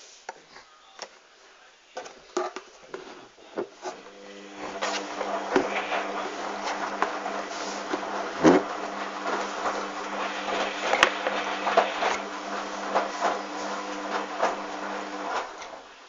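Hoover Dynamic washing machine running: a steady motor hum with a hiss starts about four seconds in and stops shortly before the end, with clicks and knocks throughout.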